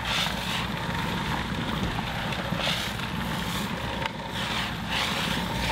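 Handheld garment steamer running on the sofa's fabric upholstery: a steady hum and hiss, with the hiss swelling now and then as it is moved over the cushions.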